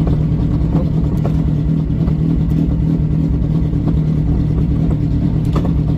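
Suzuki Hayabusa inline-four motorcycle engine idling steadily in the car, with a few faint clicks as the electric shift solenoid steps the gearbox down from second into first.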